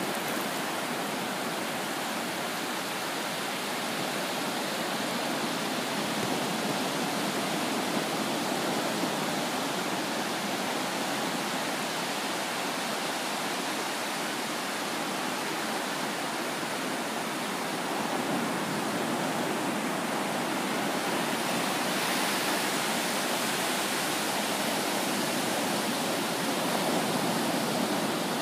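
Ocean surf breaking and washing up the beach in a steady rushing hiss, a little fuller in the last several seconds.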